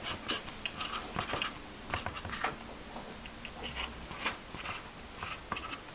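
Felt-tip marker scratching and squeaking on paper in short, irregular strokes as letters are written.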